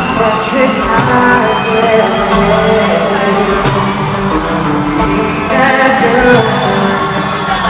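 Live pop music: a band playing over a steady beat, with a voice singing.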